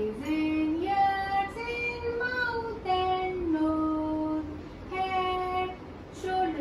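A high voice singing a simple tune in held notes that step up and down, with short breaks between phrases.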